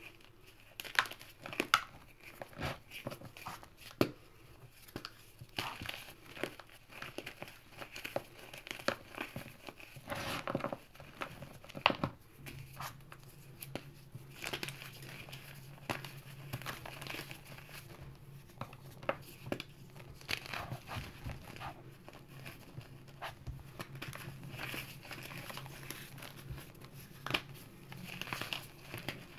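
Hands crumbling and squeezing chunks of damp gym chalk and cornstarch. It makes a run of irregular soft crunches and crackles, with a few sharper snaps as chunks break, and powder sifting through the fingers.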